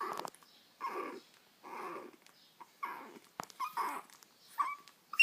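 A dog breathing hard, about one heavy breath a second. From about the middle it gives short whimpering squeaks between breaths, with the sharpest and loudest squeak right at the end.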